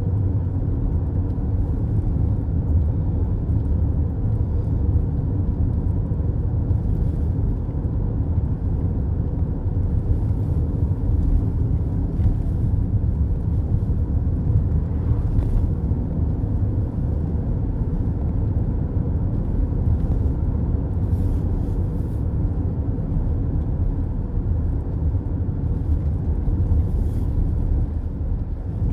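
Steady low road rumble heard from inside a moving car's cabin: tyre and engine noise at a constant cruising speed.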